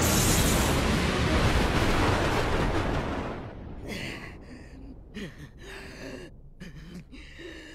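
Anime thunderstorm effect: a sharp lightning crack at the start over heavy rain and rumbling thunder, which fades out after about three seconds. Then a woman's angry growls and grunts through clenched teeth, in short broken bursts.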